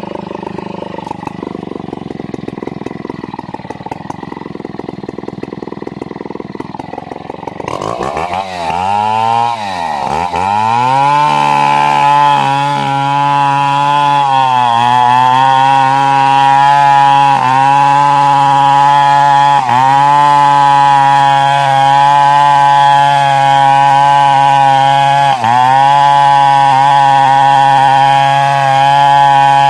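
Two-stroke chainsaw running at lower speed, then revved up sharply about eight seconds in and held at full throttle while cutting wood. The engine note sags briefly every few seconds as the chain loads in the cut.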